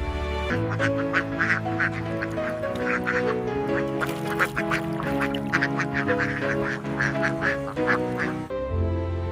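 Cartoon background music: held chords underneath a run of short, quick notes, about three or four a second, which stop shortly before the end.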